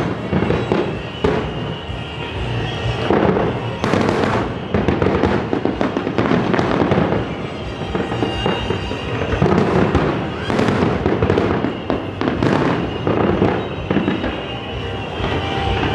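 Aerial fireworks going off in a dense, unbroken run of overlapping booms and crackling bursts, about one every second.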